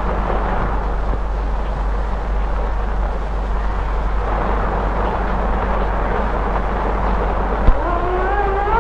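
Typhoon wind and heavy rain, a steady rushing noise. Shortly before the end a sharp click, then a wavering tone that rises in pitch and holds.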